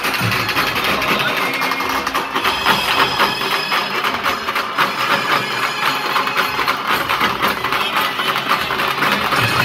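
A street band of dhol drums playing a fast, dense beat of stick strokes. The deep bass thins out about a second and a half in and comes back near the end.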